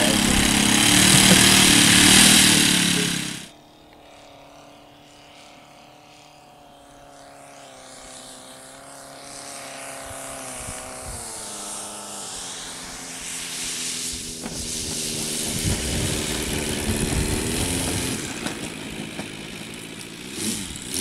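Radio-controlled model airplane engines. One runs loud for the first few seconds and cuts off abruptly. Then another model's engine drones more quietly; its pitch drops as it is throttled back around ten seconds in, and it grows louder as the plane comes in to land.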